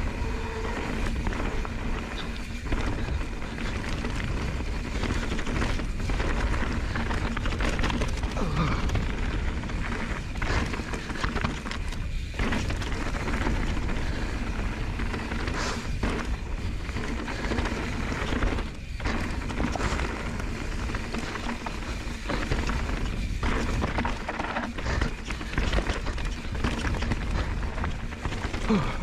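Mountain bike running down a loose gravel and slate trail: tyres crunching over stones, with repeated knocks and rattles as the bike hits rocks, and a steady low rumble of wind on the microphone.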